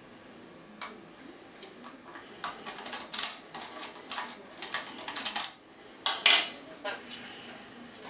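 A DOM IX6 KG dimple-key euro cylinder being worked with its key and then a tension tool: sharp metallic clicks and scrapes of the key sliding in and out of the keyway. One click about a second in, a fast run of clicks from about two and a half seconds to five and a half, and the loudest clicks a little after six seconds.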